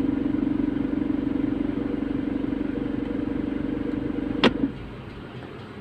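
Car engine running with a steady buzzing rattle, the rattle that comes in drive position, traced to a missing bolt. About four and a half seconds in there is a sharp click, and the buzz stops.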